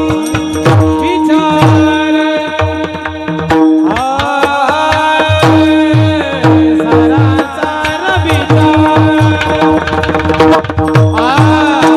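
Varkari kirtan music: a hand drum beats a steady rhythm with bass strokes that slide down in pitch, over a held drone note. A voice sings a phrase about four seconds in and again near the end.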